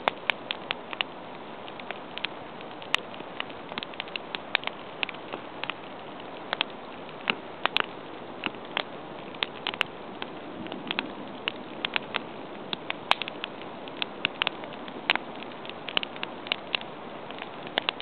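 Log campfire crackling: irregular sharp pops and snaps, sometimes several close together, over a steady hiss.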